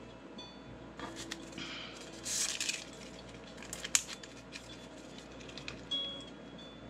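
Paper chopstick sleeve rustling as disposable wooden chopsticks are slid out, then a sharp click about four seconds in as the wooden sticks are snapped apart.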